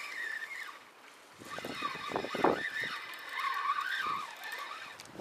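Fishing reel being wound as a baited crab-net trap is hauled up out of the sea. There is a wavering squeak, and a cluster of rattling clicks about two seconds in.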